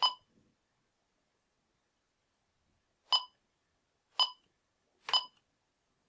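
Bosch B Series alarm keypad beeping as its keys are pressed: four short electronic beeps, one near the start and three more about a second apart near the end, each the keypad's confirmation of a key press.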